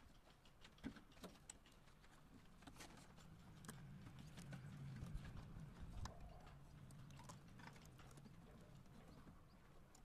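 Faint, irregular clicks and light metallic taps of binding wire and stirrups being worked by hand on a rebar column cage, over a low steady hum.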